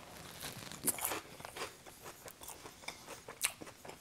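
Close-miked biting and chewing of a slice of pepperoni and cheese pizza: a string of short crunches and wet mouth clicks, sharpest about a second in and again about three and a half seconds in.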